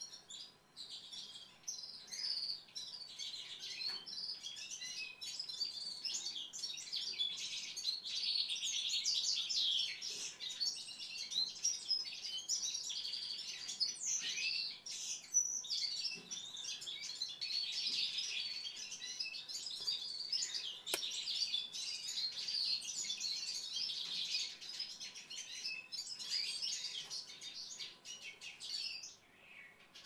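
Small songbirds chirping and twittering, with many short calls overlapping almost without a pause.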